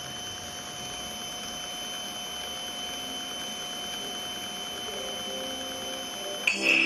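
Steady VHS playback hiss with a few faint, constant high whining tones. Near the end, music starts suddenly with a bright, loud opening note.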